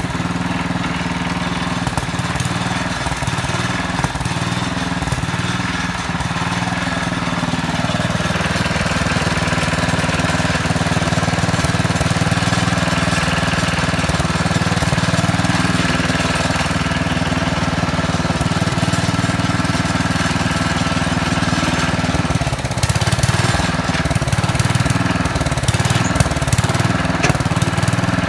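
1968 Sears Suburban 12 tractor's Tecumseh HH120 single-cylinder engine running steadily, getting a little louder about eight seconds in, with a brief uneven stretch near the end.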